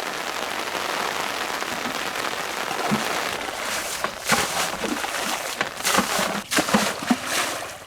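Steady rain falling on a pond and its banks; from about four seconds in, a string of splashes as water is scooped out of the pond and tossed aside.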